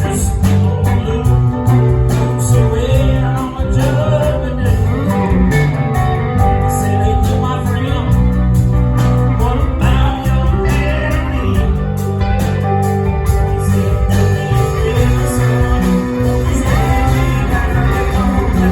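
A live band playing loudly with electric guitar, bass and drums, with some singing over it.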